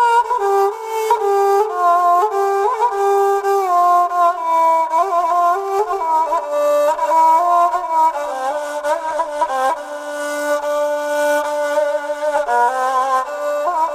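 Background music: a flute playing a slow, continuous melody with gliding, ornamented notes.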